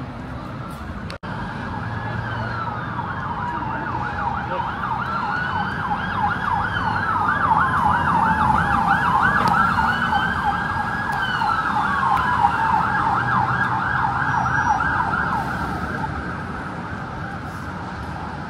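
Emergency vehicle sirens passing on a city street: a slow rising-and-falling wail overlapped in the middle by a fast yelp, growing louder towards the middle and fading towards the end, over the rumble of traffic.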